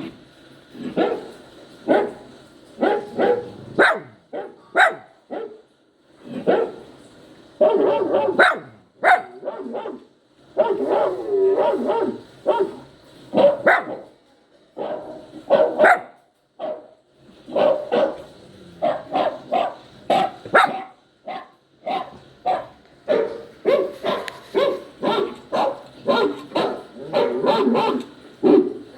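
Puppy yowling and crying in quick runs of short, pitched yelps and barks, broken by a few short pauses.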